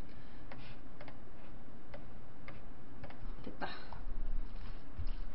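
Scattered light ticks and clicks, then from about four seconds in a denser run of scraping and clinking as chopsticks stir bibimbap in a large bowl.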